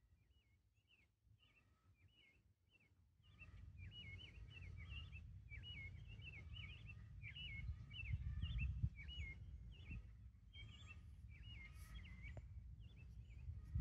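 Faint outdoor birdsong: short chirping calls repeating several times a second. Under it is a low rumble that comes up about three seconds in and swells near the middle.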